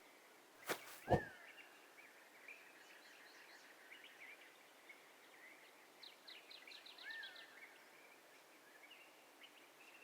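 Faint birdsong of short chirps and brief trills, the densest run about six to seven seconds in. Two sharp knocks come about a second in, the second one louder.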